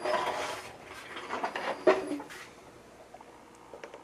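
Hands handling the disassembled lens and small tools: a short burst of rustling, then scraping and clicking with one sharp click about two seconds in, and faint ticks after.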